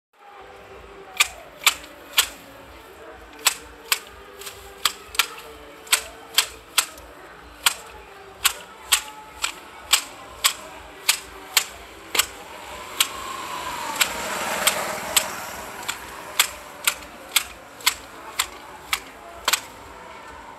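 Hand hedge shears cutting through a hedge: sharp clicks of the blades snapping shut, irregular, about one or two a second. Around the middle a swell of rushing noise rises and fades beneath the clicks.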